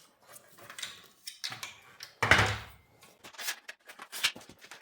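A laser-level tripod being handled: scattered clicks and knocks, with one louder clunk and scrape about two seconds in.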